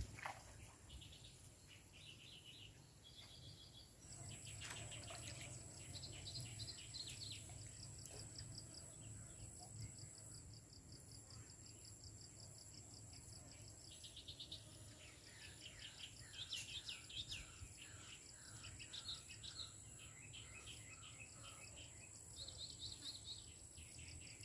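Faint outdoor ambience of birds chirping in short repeated trills, some stepping down in pitch, over a steady high insect whine.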